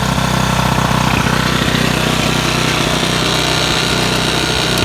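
Small gasoline engine of a rototiller running steadily, a few seconds after being pull-started. It runs again now that its carburetor, whose jet had gummed up from stale ethanol fuel, has been cleaned with carburetor cleaner.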